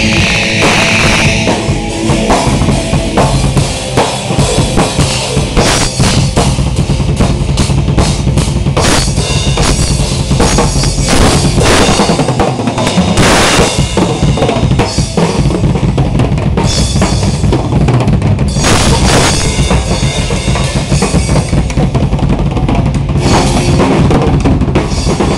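Rock drum kit played hard and fast, a dense flurry of bass drum, snare and tom hits under crashing cymbals, in the manner of a showy drum solo.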